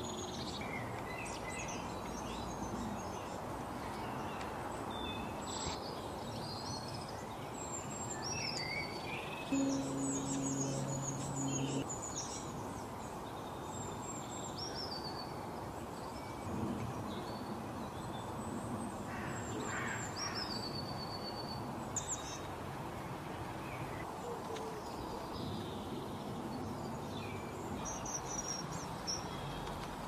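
Many small birds chirping, with short, quick calls scattered throughout over a steady background hiss of outdoor ambience. About ten seconds in, a low steady drone sounds for about two seconds.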